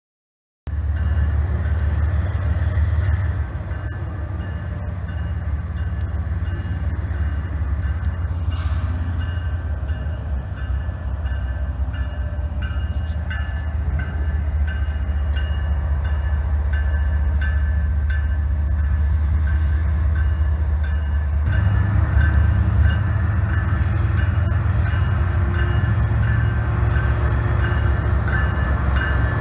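Diesel locomotives of a CSX freight train, a GE ES44AC-H and a GE AC44CW, working as the train pulls out: a steady low engine rumble that cuts in abruptly just after the start and grows louder about 21 seconds in as the lead units draw closer. Faint short high chirps recur over it.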